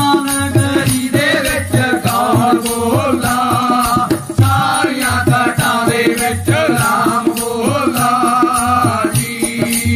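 Punjabi devotional folk singing: a man and a boy singing together over a steady beat from a dholak and the repeated plucked note of a single-string tumba (tumbi).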